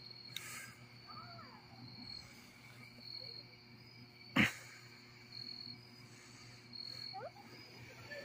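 Insects chirping in a high, thin pulse that repeats about once a second, with one sharp crack about four and a half seconds in.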